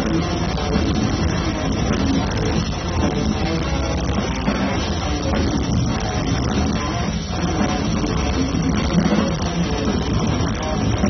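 Death metal band playing live: distorted electric guitars, bass guitar and drum kit in a loud, dense, unbroken wall of sound.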